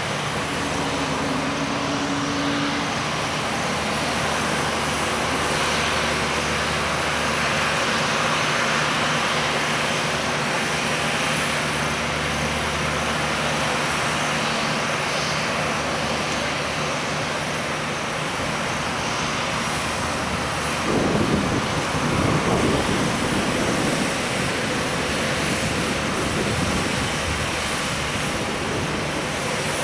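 Airbus A321neo airliner's jet engines running steadily, a continuous rushing noise with a low hum. A short surge of low rumble comes about two-thirds of the way through.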